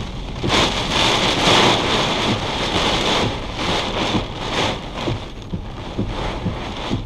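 Heavy rain beating on a car's roof and windows in a severe thunderstorm, swelling and easing with the gusts every second or so.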